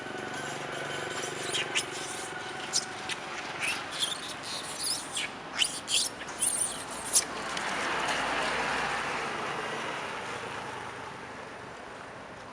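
A string of short, sharp, high chirps and squeaks over the first seven seconds, then a passing vehicle that swells to its loudest about eight seconds in and fades away.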